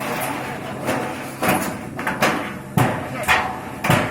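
Repeated hammer blows on masonry as a structure is broken up in demolition, about five sharp strikes a little more than half a second apart, with voices around.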